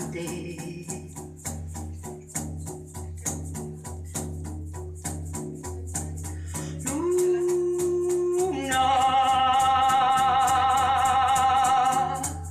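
A woman singing a long wordless note that steps up higher and louder with vibrato about nine seconds in, over a steady rattle-like hand-percussion beat of about four strokes a second and a low hum.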